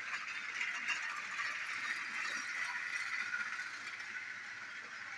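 Battery-powered toy train's small electric motor whirring, with its wheels and coaches rattling on plastic track, a little louder as it runs towards the microphone.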